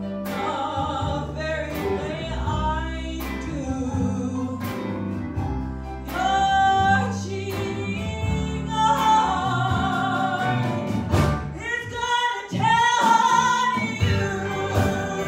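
A woman singing a slow country song live into a microphone with a band accompanying her. Her voice grows louder about halfway through and holds long notes.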